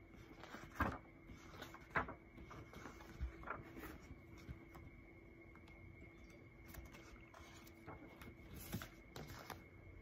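Soft rustles and light knocks of a paperback picture book being picked up and its pages flipped, in scattered short bursts, over a faint steady electrical hum.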